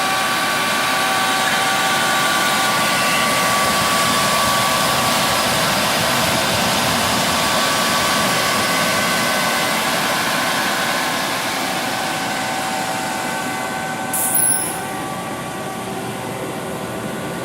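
Kaeser SK 20 rotary screw air compressor running after start-up, a steady whine over a hiss of air. About fourteen seconds in there is a short sharp hiss, after which it runs a little quieter.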